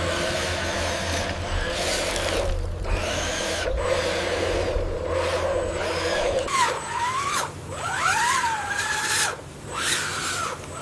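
A machine motor running with a steady low hum. About six and a half seconds in, the hum drops away and high whines start, sliding up and down in pitch several times.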